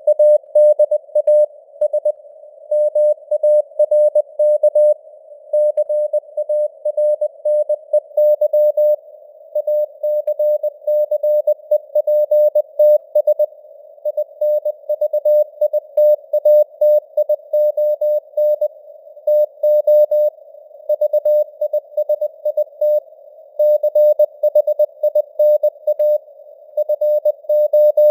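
Morse code (CW) sent at 20 words per minute: a single mid-pitched tone keyed on and off in dots and dashes, with simulated radio hiss around the tone.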